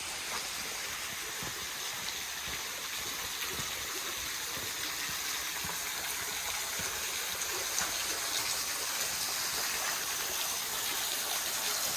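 Small waterfall with only a trickle of water coming down, splashing steadily and growing slightly louder.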